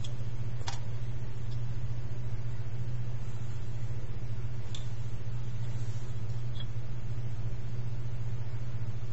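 A steady low hum at an even level, with two faint clicks, about a second in and near the middle.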